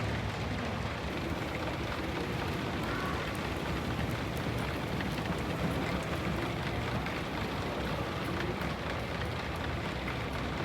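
Steady, even background noise with a faint low hum underneath and no distinct events.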